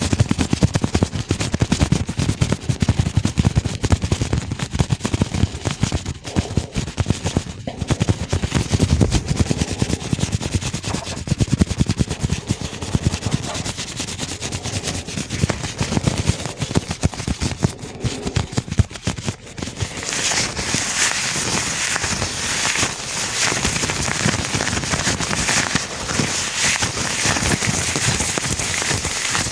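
Gloved hands rubbing and crinkling close to the microphone: a dense run of rapid crackles and clicks. About two-thirds of the way through it turns into a brighter, steadier hissing crinkle.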